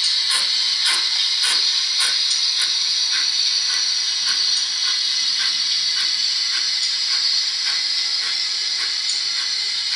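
Model steam-locomotive sound from the Zimo MX648R decoder and 28 mm tender speaker in a Hornby GWR 28xx 2-8-0, playing a Mr Soundguy sound file. A steady hiss of steam carries exhaust chuffs at about two a second, which grow softer about three seconds in.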